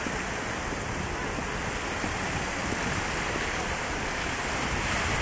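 Steady rushing of a muddy river in full flood.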